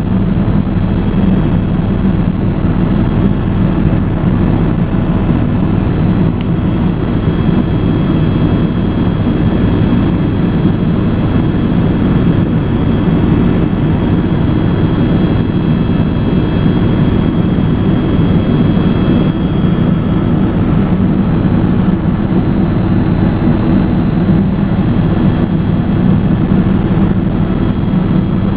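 Airbus EC130 helicopter in cruise flight, heard from inside the cabin: a loud, steady low rumble from the rotor and turbine with a thin high whine over it.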